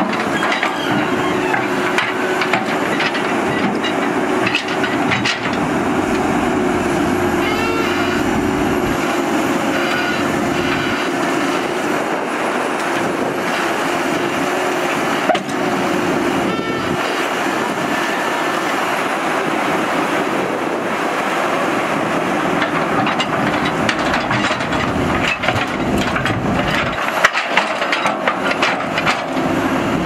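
Caterpillar 320C excavator running hard under load as its bucket pushes a tipped, loaded dump truck back upright: steady diesel engine and hydraulic noise, with a held tone through the first half and scattered metal knocks and scrapes.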